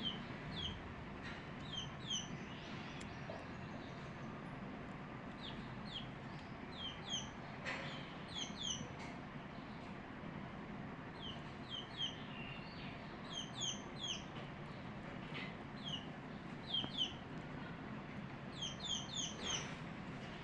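Small birds chirping: short, high, falling chirps, often in quick pairs or triples, repeated at irregular intervals over a steady low background noise.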